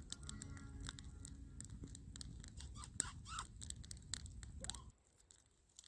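Wood campfire crackling and popping over a low steady rumble. The sound drops away sharply about five seconds in.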